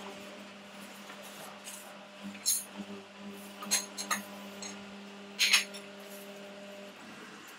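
A paper towel rustling and a ceramic plate clinking lightly on a countertop as the plate is wiped, heard as a handful of short, separate scrapes and clinks. A steady low hum runs underneath and stops near the end.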